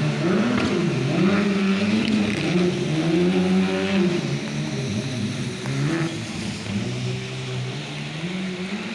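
Rally car engine revving hard, its pitch climbing and dropping again and again as the car accelerates and shifts gears.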